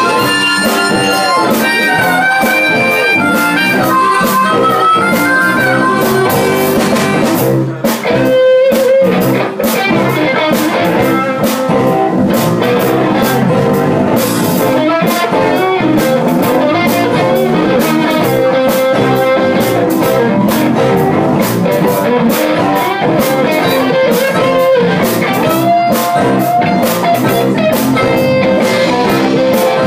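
Live blues band playing an instrumental passage: electric guitars, bass guitar and drum kit, with a harmonica blown into a hand-held vocal mic. There is a brief break about eight seconds in.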